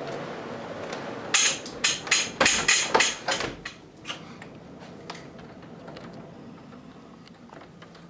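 Gusty thunderstorm wind rushing over the microphone, then a quick run of sharp knocks beginning about a second in, thinning out into scattered ticks as the wind noise dies down.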